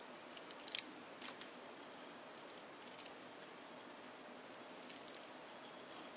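A few faint metallic clicks from an all-metal fidget spinner being handled, the clearest in the first second or so, over quiet room tone.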